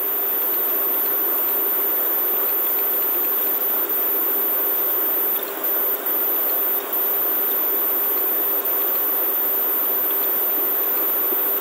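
Steady background hiss with a constant low tone running through it, dipping briefly a few times about halfway through.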